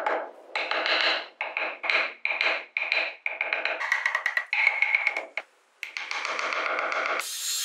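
A metal rod set in a carved wooden phone back, struck repeatedly with a wooden block to drive a hole: about a dozen sharp, briefly ringing taps, two or three a second. Near the end a trim router starts cutting.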